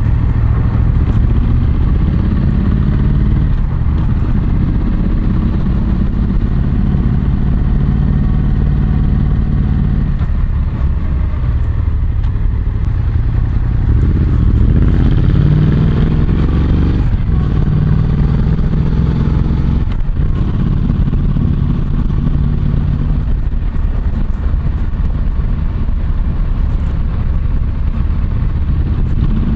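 Yamaha MT-07's parallel-twin engine through an SP Tadao PowerBox full exhaust, ridden at low speed through streets. Its pitch rises and drops with throttle and gear changes, with a clear rising pull about halfway through. It is picked up from a mic in the rider's back pocket, with rustling of coated jeans fabric against it.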